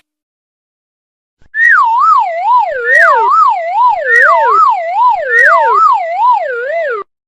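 Cartoon-style sound effect: a wobbling tone, about three wobbles a second, sliding down in pitch. It plays four times in overlapping runs about a second and a quarter apart, starting about a second and a half in and cutting off suddenly near the end.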